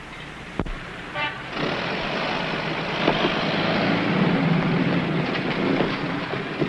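Vehicle traffic sound: a sharp knock, a short horn toot about a second in, then a loud, steady engine rumble that swells up about a second and a half in.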